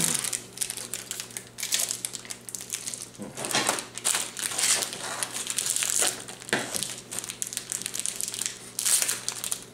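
Tough plastic blister pack of a crankbait lure being cut and pried open with a knife: stiff plastic crackling and rustling in irregular bursts.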